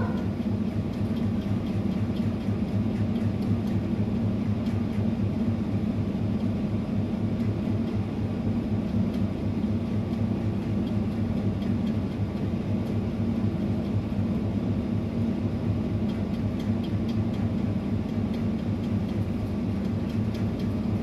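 Steady low mechanical hum that does not change.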